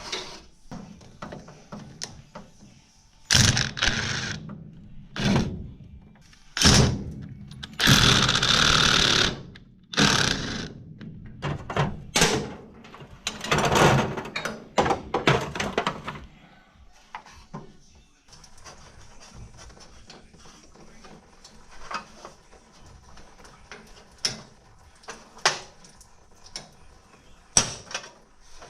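Tools working bolts loose on a race car's pedal assembly: several loud bursts of clattering tool noise and metal clanks in the first half, the longest lasting about a second and a half, then lighter clicks and taps.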